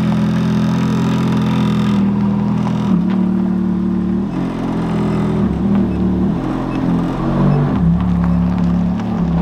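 Ferrari F430's 4.3-litre V8 running while parked, exhaling through a catless, valveless aftermarket exhaust with resonated test pipes. It holds a steady idle at first, then its pitch shifts up and down several times from about three seconds in, with light throttle.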